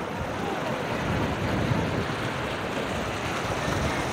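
Sea surf breaking and washing over a rocky shore: a steady rush of waves.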